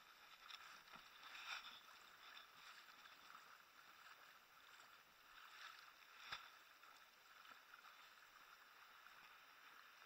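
Faint sloshing and lapping of shallow seawater against a camera held at the water's surface, swelling gently, with one sharp knock about six seconds in.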